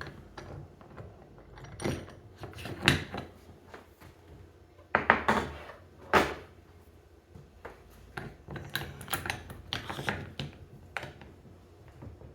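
A golf iron being handled and clamped into a loft-and-lie machine: irregular clicks, knocks and clunks, loudest around five to six seconds in.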